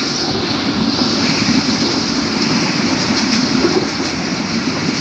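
Steady running noise of a moving passenger train heard from inside a carriage: an even rumble of wheels on rail with a rushing hiss above it.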